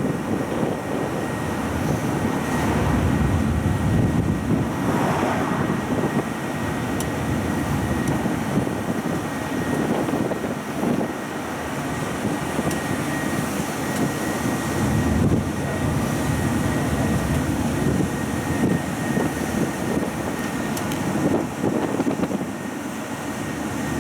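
A tourist road train moving along, its motor running steadily under rumbling road noise, with a thin steady whine above. Wind buffets the microphone throughout.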